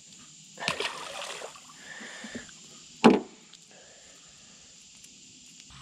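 Water splashing as a released largemouth bass is dropped back into the river beside a boat, with one short sharp splash about three seconds in as the loudest sound and some lighter sloshing before it.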